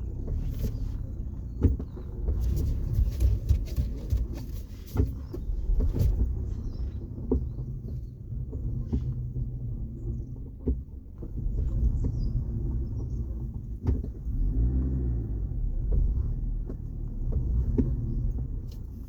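A low, uneven rumble with scattered short clicks.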